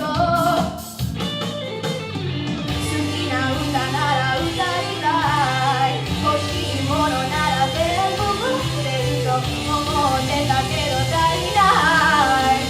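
Pop song: a sung melody over bass and drums, the drum hits dense in the first two seconds.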